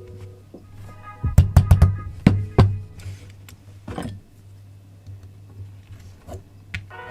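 Sharp clicks and knocks of Nambu Type 14 model pistol parts being handled: a quick cluster of about six between one and three seconds in, and another knock about four seconds in. Quiet background music and a low steady hum lie underneath.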